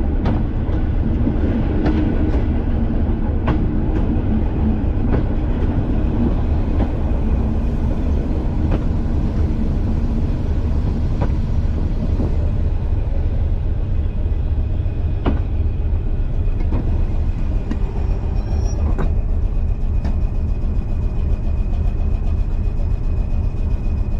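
Class 205 'Thumper' diesel-electric multiple unit on the move, heard from the cab: a steady low engine and running rumble with sharp rail-joint clicks about every second and a half, which come further apart in the second half.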